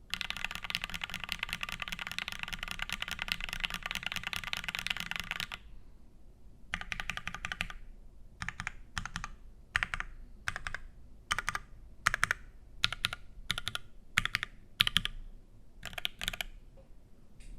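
Mechanical keyboard with lubed H1 switches, an aluminium plate and GMK keycaps being typed on. It starts with fast continuous typing, a short pause, a brief burst, then single keys struck one at a time about every half second.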